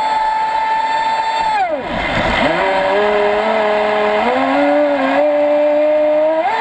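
Traxxas Spartan RC speedboat's brushless electric motor whining at high speed. About a second and a half in, the whine drops sharply in pitch as the throttle is backed off, with the rush of water along the hull. It then picks up again at a lower steady pitch, steps up about four seconds in, and climbs back to full speed near the end.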